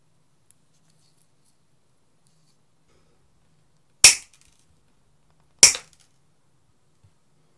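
Needle-nose pliers' side cutter snipping through a thin metal pin twice, each cut a sharp snap, about a second and a half apart.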